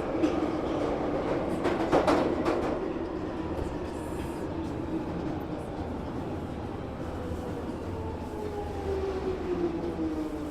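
Train passing and pulling away: a rumble of wheels on rail, with a quick run of clacks about two seconds in. The noise fades as the train recedes, and steady tones in it slide slowly down in pitch near the end.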